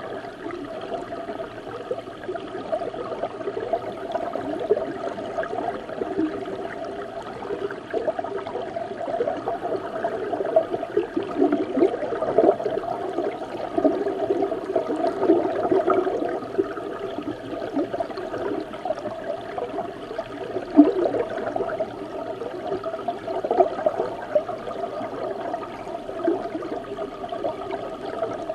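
River water heard from inside the Doshi River, a continuous muffled bubbling and gurgling with small irregular splashy peaks, swelling and easing.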